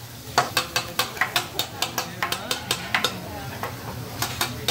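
A metal seasoning shaker shaken hard over a hibachi griddle: a fast run of sharp clicks, about five a second, that stops about three seconds in and comes back as a few more clicks near the end. Under it, the food sizzles on the griddle.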